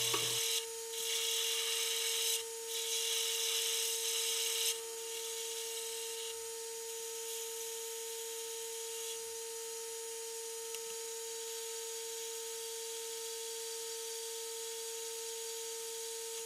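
Metal lathe running with a steady whine while a tungsten carbide tipped tool cuts EN24 steel, a hiss that breaks off twice briefly and stops about five seconds in; the lathe then runs on with only its whine.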